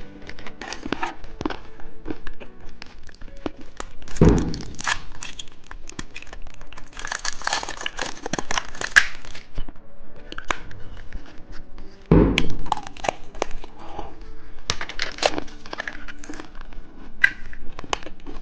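Plastic candy wrappers and packets being handled, with crinkling, rustling and tearing, plus a couple of dull thumps as things are set down.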